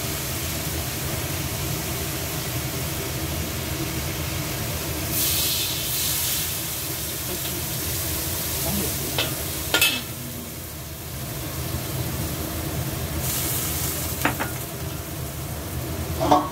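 Tomato wedges sizzling steadily in hot oil in a wok, with two spells of louder hissing as water from a bowl is poured onto the hot pan. A few sharp metallic clinks from a metal spatula or the bowl against the wok.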